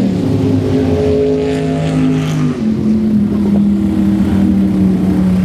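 Ford flathead V8 running through short open header pipes, holding a steady fast idle. About two and a half seconds in its speed drops a step to a slower, steady idle.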